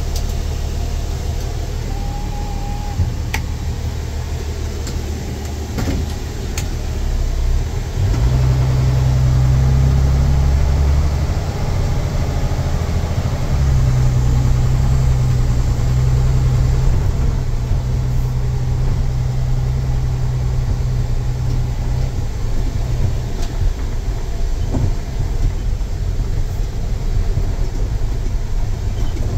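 Straight-piped 7.6-litre inline-six diesel of a 2005 Hino 268 truck, heard from inside the cab while driving: a steady low rumble that swells about eight seconds in as the engine takes load, eases briefly, then pulls strongly again before settling. A few light clicks and rattles sit under it.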